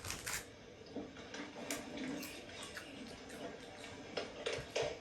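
Faint, scattered clicks and light taps, with a few louder ones near the end.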